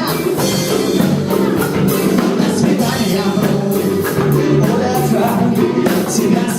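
A rock band playing live, with drums keeping a steady beat under the full band.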